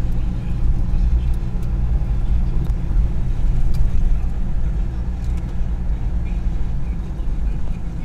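A car's engine and tyres on a wet road, heard from inside the cabin as a steady low rumble, with a few faint ticks scattered through it.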